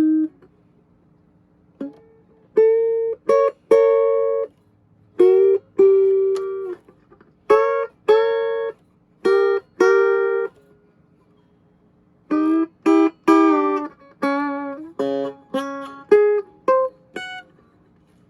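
Vintage Silvertone hollowbody electric guitar played clean, with no effects. Single notes and chords are plucked and left to ring, with short pauses between them, then a quicker run of notes in the second half.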